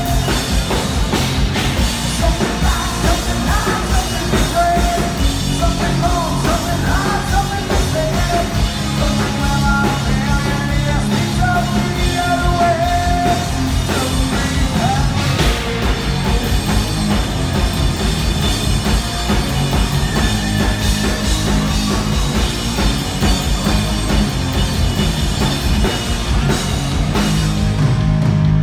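Hard rock band playing live at full volume: distorted electric guitars, bass and drum kit, heard from the crowd. A wavering melody line rides over it through the first half.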